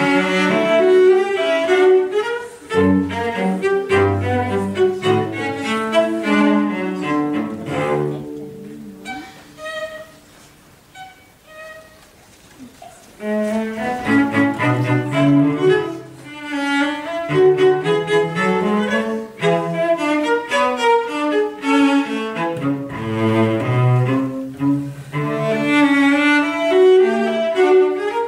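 Cello ensemble playing, several cellos in busy, overlapping figures. It thins to a few quiet, separate high notes for a few seconds in the middle, then the full ensemble comes back in.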